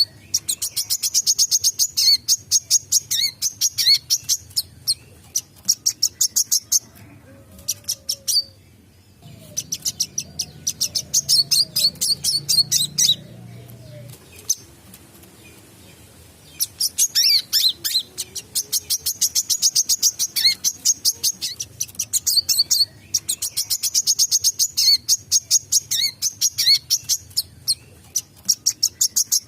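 Wiceh sunbird singing hard: long runs of rapid, sharp, high chirps, many a second, broken by two short pauses of a couple of seconds.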